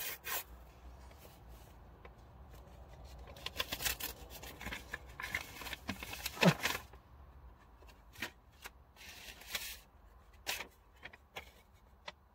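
Paper rustling and crinkling as an envelope is opened and a paper bill handled: scattered short rustles, busiest in the middle, with the loudest rustle about six and a half seconds in.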